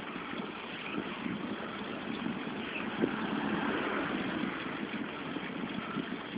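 Wind buffeting the microphone and road noise from riding along a road, a steady rushing with a sharper knock about three seconds in.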